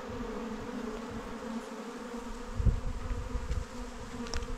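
A swarm of honey bees clustered on a bush, buzzing as a steady hum. A brief low thump comes about halfway through.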